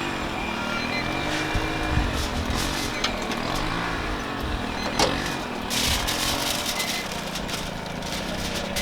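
A motor runs with a pitched hum that rises and falls a few times. A few sharp clicks come about three and five seconds in, and a brief clatter follows about six seconds in.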